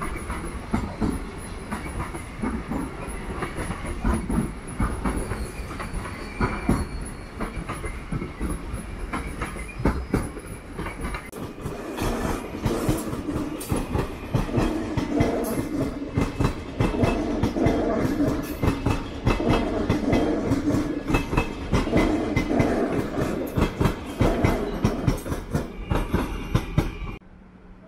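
A train running over rail joints and points, its wheels clacking in a dense, irregular series; about halfway through, a mid-pitched drone joins the clatter. The sound cuts off suddenly near the end.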